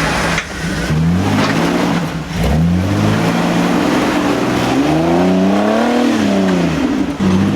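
Lifted Jeep's engine revving up and down in short bursts as it crawls over an obstacle, with one longer rise and fall about five seconds in.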